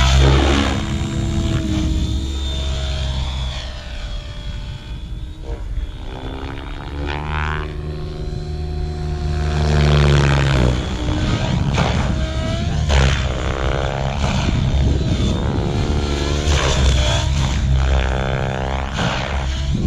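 Radio-controlled model helicopter's rotor and drive whirring and whining as it lifts off and flies aerobatics, the pitch sliding up and down repeatedly as the rotor is loaded and unloaded through the manoeuvres.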